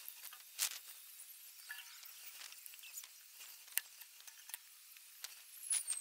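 Faint outdoor ambience with a soft high hiss, broken by many scattered sharp clicks, and a brief high falling whistle near the end.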